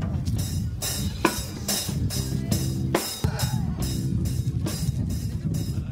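Music with a steady drum-kit beat, the cymbal or hi-hat strokes coming about two to three times a second over bass drum and a low, full band sound.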